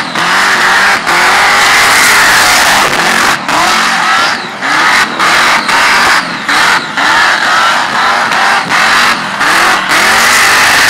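Supercharged Holden VL Commodore doing a burnout: the engine revs hard, dipping briefly over and over, while the spinning rear tyres screech.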